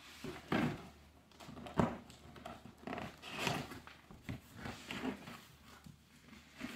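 Cardboard packaging being handled in a long shipping box: irregular rustling and scraping with several knocks, the sharpest a little under two seconds in.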